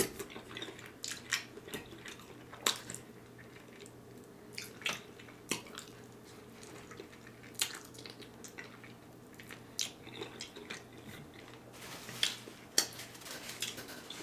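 Close-miked wet chewing and lip smacks of someone eating smoked turkey leg meat, with scattered sharp mouth clicks every second or two.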